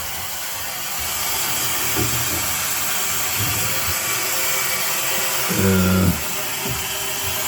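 Steady hiss from a leaking gas water heater, growing a little louder about a second in.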